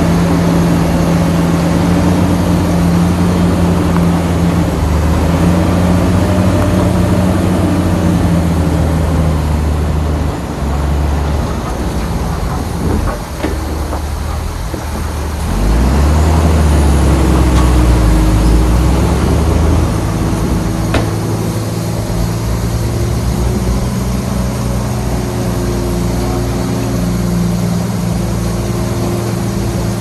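Bulldozer's diesel engine running steadily under load. It eases off for a few seconds around the middle, then comes back stronger.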